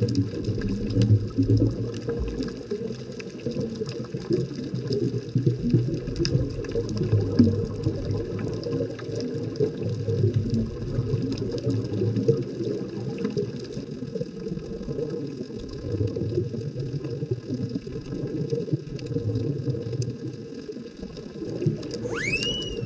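Underwater ambience picked up by a submerged camera: a steady low rumble of moving water with faint scattered crackling clicks. Near the end there is a brief rising, bending tone.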